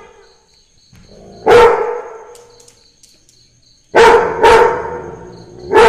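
Labrador barking: four loud, deep barks, one about a second and a half in, two in quick succession about four seconds in, and one near the end, each trailing off with an echo.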